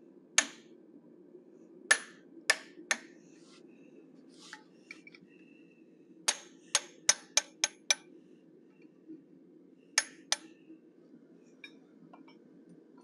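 Hand hammer striking a hand-held top tool set on a small piece of hot steel, about a dozen sharp, ringing metallic blows in uneven groups, with a quick run of six at about four a second near the middle. The blows cut the bottom chamfer line of a forged bear head up toward the chin.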